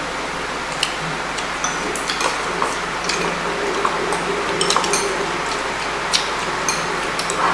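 Eating utensils clicking and tapping lightly against bowls and plates at irregular moments during a meal, over a steady background hiss.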